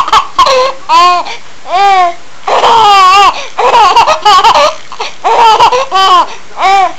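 Baby laughing: a run of short, high-pitched squealing giggles, about ten bursts with the pitch sliding up and down.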